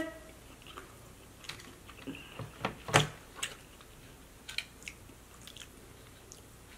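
Boiled crawfish shells clicking against each other as fingers pick through a heaped tray of them, a scatter of light, irregular clicks with the sharpest about three seconds in.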